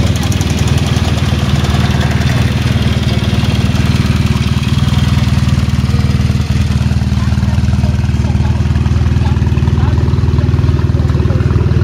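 Classic racing motorcycle and sidecar-outfit engines idling together, a steady low rumble with no revving.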